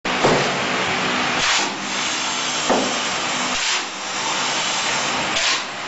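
Gear-controlled wall rendering machine running as it plasters cement mortar onto a brick wall: a steady machine hiss with a louder whoosh every one to two seconds.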